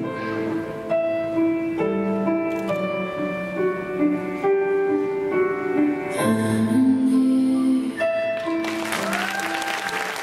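Slow instrumental film music with long held notes, played for a gymnastics routine; audience applause breaks out near the end as the routine finishes.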